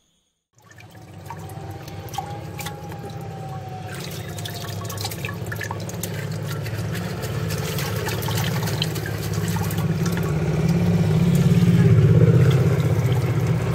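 Water dripping and splashing over a steady low hum, getting louder toward the end.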